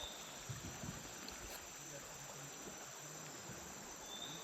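Steady, high-pitched chorus of insects, with a few soft low bumps in the first second.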